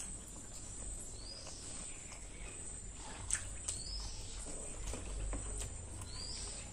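Eating sounds: soft mouth clicks and chewing from a person eating rice and curry, the two sharpest clicks a little after halfway. Short rising-and-falling bird chirps recur behind them every couple of seconds.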